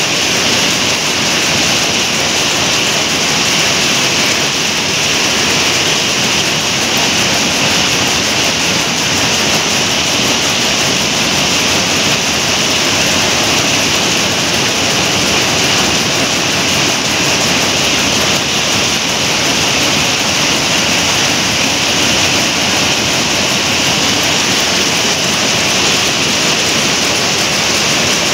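Rows of jacquard power looms weaving sarees together in a weaving shed, making a loud, steady, unbroken din.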